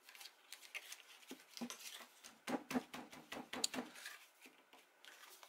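Faint, irregular rustles and light taps of paper card stock being handled: a photo pressed into place on a paper pop-up card and the card's flaps shifted and folded, busiest in the middle seconds.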